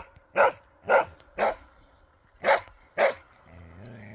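Karelian bear dog barking in a steady run of sharp barks, about two a second with a short break in the middle: the bay bark of a moose dog working a training moose. Near the end the barking stops and a quieter, steady low hum follows.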